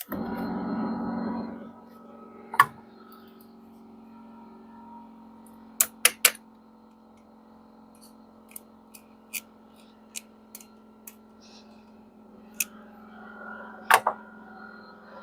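Electric air compressor of a train-horn kit kicking on and running, filling its air tank toward a 60 psi cut-off: a louder rush for the first second and a half that settles into a steady hum. A few sharp clicks sound over it.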